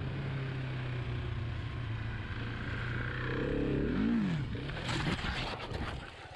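Dirt bike engine running steadily, revving up and back down about four seconds in, then clattering and scraping about a second later as the bike goes down on the pavement. The rider puts the crash down to a rear tyre that was not yet warmed up and caught.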